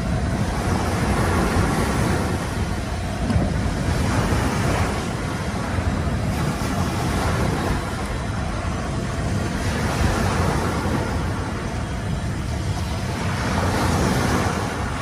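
Sea surf washing on a sandy beach with wind buffeting the microphone, a steady rushing noise that swells and eases a little.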